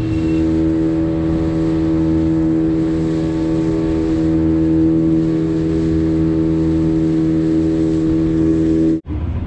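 Outboard motor of a small open fishing boat running steadily at cruising speed, an even hum with no change in pitch. It drops out sharply for a moment near the end.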